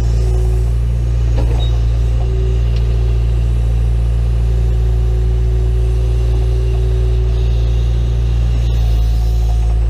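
John Deere 310E backhoe's diesel engine running steadily at an even speed.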